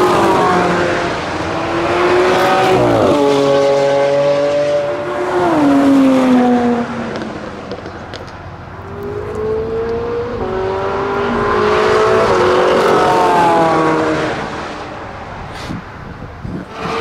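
Track-day cars passing at speed on a race circuit, one after another, their engine notes climbing through the revs and then falling in pitch as each goes by. The sound swells and fades several times, with dips about halfway through and near the end.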